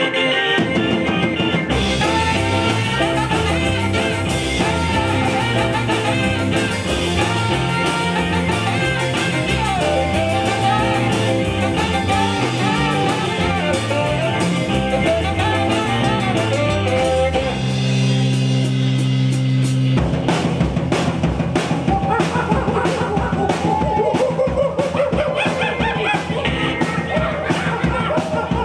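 Live band playing an upbeat rock-and-roll number on guitars and drum kit, pausing on one long held chord for about two seconds past the middle before the beat picks up again.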